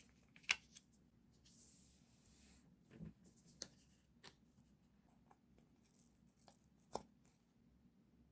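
Faint paper and stationery handling on a desk: a few small sharp clicks and taps, with a soft papery rustle about two seconds in.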